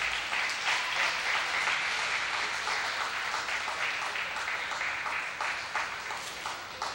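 Audience applauding with many hands clapping, dying down toward the end.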